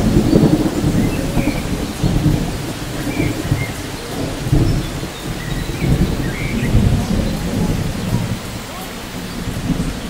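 Steady rain with a low rolling thunder rumble that swells and fades several times and dies away towards the end, and a few faint bird chirps above it.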